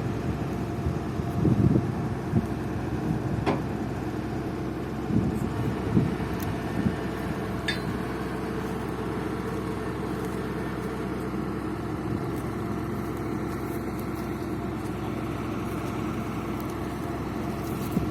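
Borewell drilling rig's engine running steadily, with a few short metallic knocks over it.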